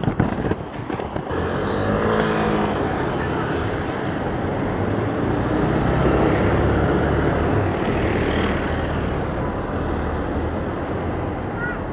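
Steady rolling rumble of inline skate wheels on pavement, mixed with city street traffic; a few sharp clicks or knocks in the first second.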